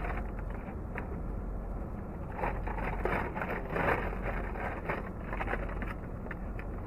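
Paper fast-food bags rustling and crinkling as food is pulled out of them, busiest about two and a half to four seconds in, over a steady low rumble.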